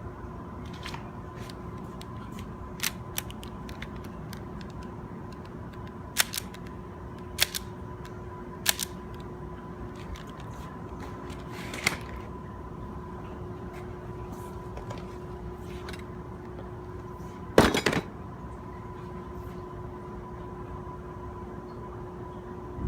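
Airsoft gun firing sharp single snaps a few seconds apart, some in quick pairs, with a louder rapid string of snaps about three-quarters of the way through. A steady hum runs underneath.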